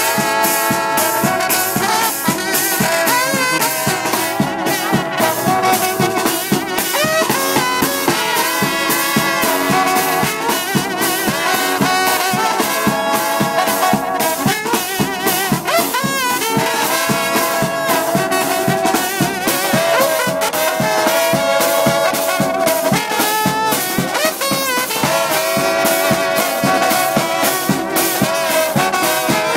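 Brass band playing: trumpets and trombones over a sousaphone bass line, with a snare drum and bass drum keeping a steady beat.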